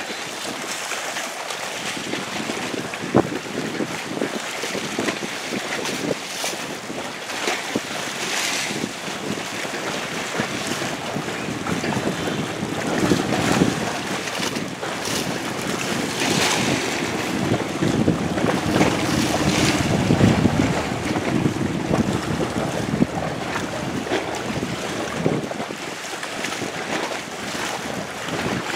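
Wind buffeting the microphone over rough water slapping and splashing against a small boat at sea, with frequent sharp splashes.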